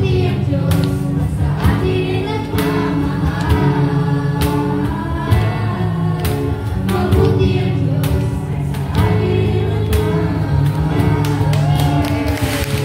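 Live worship song: a female and a male singer singing into microphones, backed by a Casio electronic keyboard and a small band.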